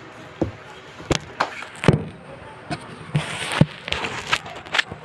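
Close-up eating sounds of crispy fried chicken wings: a string of sharp crunches and mouth smacks while biting and chewing.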